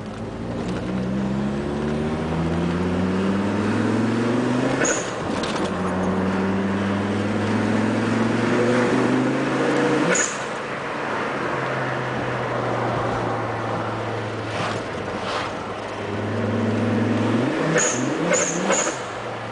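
A turbocharged Fiat Marea Weekend engine pulling hard through the gears, its pitch rising twice. An HKS SSQV blow-off valve vents with a short sharp hiss at each lift-off, about five seconds in and about ten seconds in. Near the end the engine climbs again and is followed by three quick blow-off hisses in a row.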